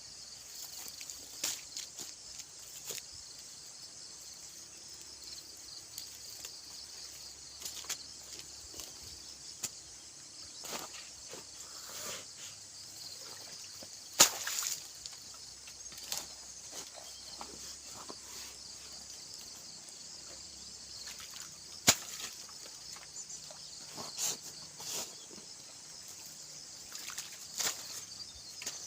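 Steady high-pitched insect chorus, with scattered sharp knocks and rustles throughout, two of them much louder in the middle.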